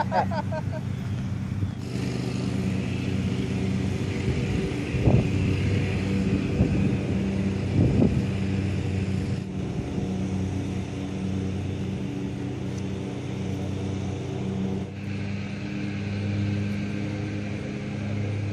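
DJI Phantom 3 quadcopter's propellers humming steadily in flight, with the pitch shifting slightly near the end. Two short low bumps come about five and eight seconds in.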